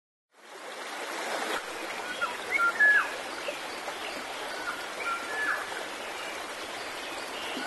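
Steady rush of running water, like a stream, fading in over the first half second. Short whistled chirps sound over it, loudest about three seconds in.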